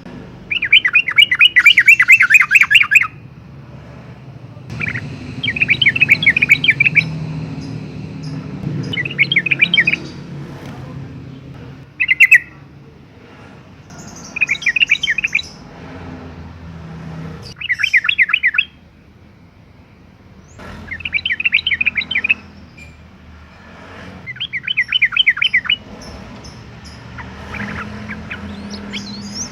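Yellow-vented bulbul (trucukan) singing in repeated phrases: about eight bursts of rapid notes, each one to three seconds long, with short pauses between.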